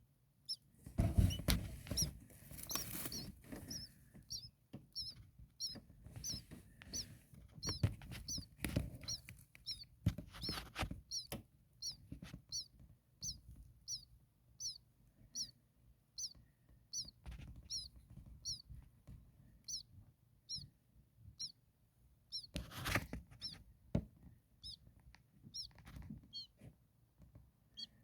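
Young European starling nestlings giving short, high begging chirps in a steady series, about one and a half a second. Bouts of loud rustling and knocking in the nest cavity come near the start, around the middle and again near the end.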